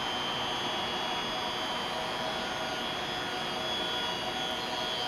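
Steady mechanical hum and hiss of an electric train standing at the platform, its onboard equipment running with a constant high whine.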